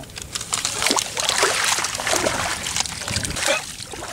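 A pile of wet grass, weeds and roots rustling in many quick crackles as hands pull it apart, with some watery trickling.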